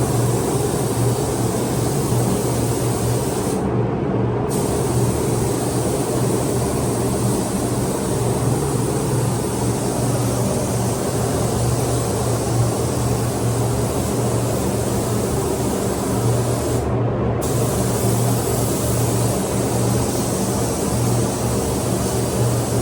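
Paint spray gun hissing steadily over a constant low hum. The hiss cuts out briefly twice, as the trigger is released between passes.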